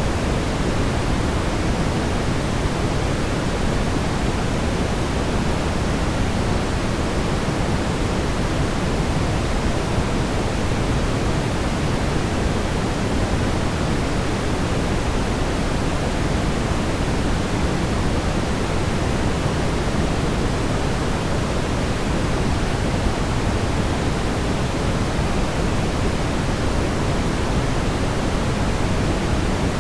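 Steady brown noise: a constant, deep, rushing hiss weighted toward the low end, with no change in level.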